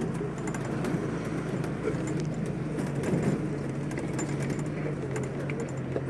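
Steady drone of a running vehicle engine, with a constant low hum, road noise and scattered small clicks and rattles.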